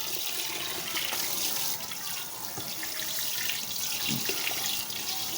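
Kitchen tap running steadily into a sink, with a couple of light knocks of things being handled in it.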